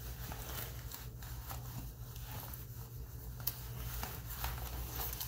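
Faint rustling and small clicks of cloth being handled as scrub clothing is pulled and adjusted, over a steady low room hum.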